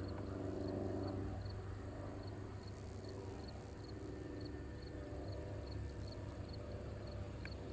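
Cessna 150F's four-cylinder Continental engine running at low power as the plane comes in to land, a steady low drone that is strongest in the first second or so. Insects chirp in a steady rhythm about twice a second.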